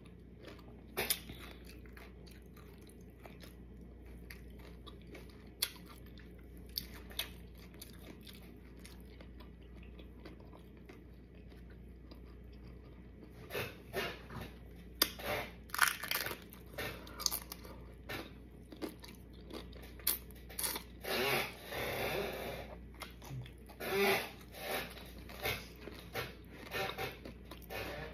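A person eating close to the microphone: scattered soft mouth clicks at first, then crunching and chewing from about halfway.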